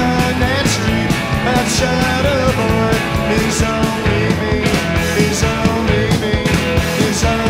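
Live rock band recording played from a vinyl record: electric guitars, bass and drums with a steady beat and regular cymbal hits.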